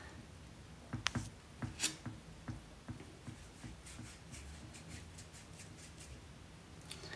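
Faint taps and clicks of fingernails on a smartphone touchscreen: a few louder taps in the first three seconds, then a quick run of light ticks.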